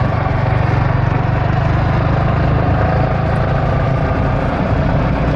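Yamaha MT-15's single-cylinder engine running steadily under way at an even cruising speed, a constant low engine hum with no change in revs.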